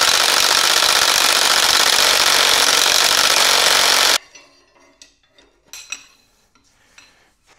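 Cordless impact wrench hammering hard and continuously on the crankshaft hub bolt of a BMW N55 engine for about four seconds, then stopping abruptly. A few light knocks and clanks of tools follow.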